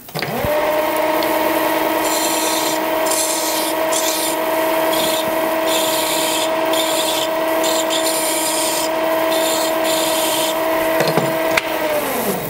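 Lathe motor spins up to a steady whine while a hand file scrapes in repeated strokes against the edge of a spinning brass flywheel, taking off its sharp corners. Near the end the motor winds down quickly to a stop.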